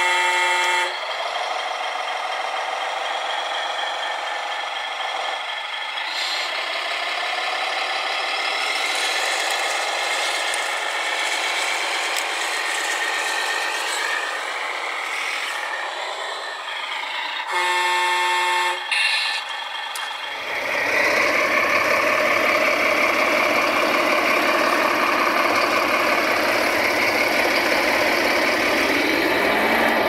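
Radio-controlled model dump truck running with a steady whine, its horn sounding twice for about a second each: once at the start and again a little past halfway. About two-thirds in, a deeper, steady engine-like running sound takes over.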